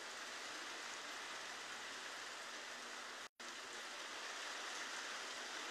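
Heavy rain falling steadily on wet, muddy ground as an even hiss. The sound cuts out for an instant just past halfway.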